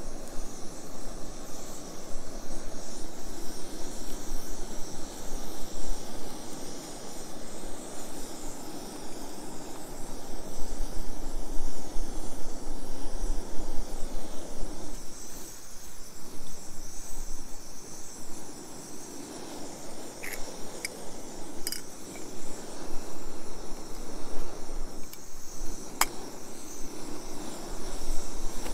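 Camp stove burning under a small steel pot of boiling potatoes: a steady rushing sound that rises and falls. A few sharp metal clinks come near the end.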